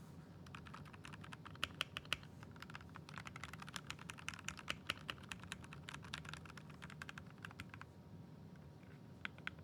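Typing on a GameStop 68% mechanical keyboard with brown tactile switches: a fast, irregular run of key clacks, easing off briefly near the end.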